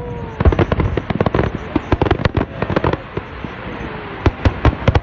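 Fireworks going off: a rapid string of sharp bangs and crackles, thinning out after about three seconds, with a few loud single bangs near the end.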